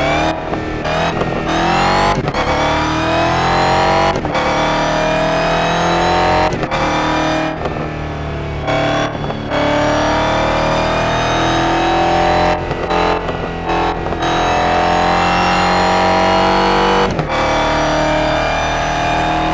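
Car engine and exhaust accelerating hard, the revs climbing steadily through a series of pulls. Each pull is broken by a brief sudden cut in the sound, several in quick succession at first and then longer pulls.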